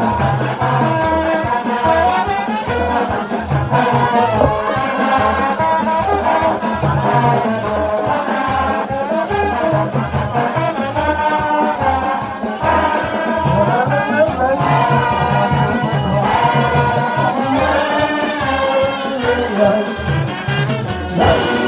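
Haitian rara band playing live: trombones and other brass horns play the melody over a low bass line that repeats in a steady pulse.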